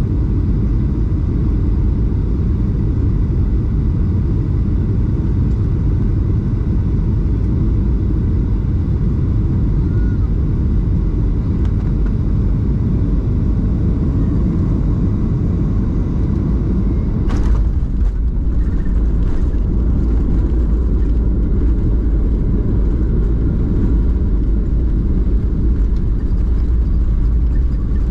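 Cabin noise inside a Boeing 737-800 landing: a steady low rumble of engines and airflow as the airliner comes in on final, touches down and rolls out along the runway. A sharp knock comes about two-thirds of the way through, followed by a few fainter clatters.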